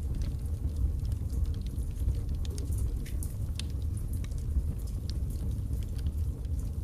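Birch logs burning in a fireplace: a steady low rumble of the fire with frequent small crackles and pops.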